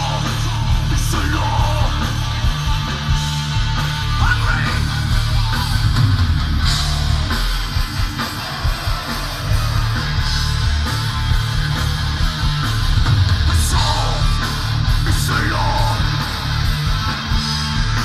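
Thrash metal band playing live and loud: distorted electric guitars, bass guitar and drums, heard from within the audience.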